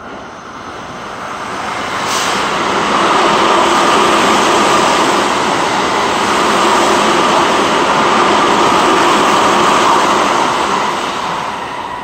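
Another train rushing past on the neighbouring track, heard from inside a stopped commuter train: a steady rumble and hiss that swells over about three seconds, holds, and fades near the end, with a sharp click about two seconds in.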